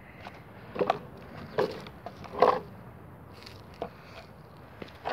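A few short rustles and knocks, about five in all, the loudest a little past the middle: handling noise from a plush toy and the phone being moved right at the microphone.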